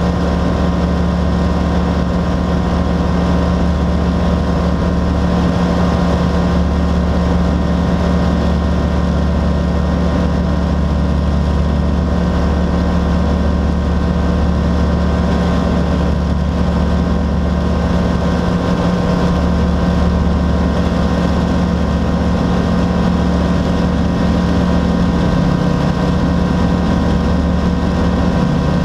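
Rans S-6S Coyote II light aircraft's engine and propeller running steadily in cruise flight, heard from inside the cockpit as a constant low drone.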